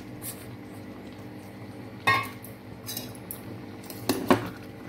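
Metal clinks and knocks as a steel bowl and spoon strike a metal pot while crumbled jaggery is tipped in: one sharp clank about two seconds in, then a few quick knocks near the end.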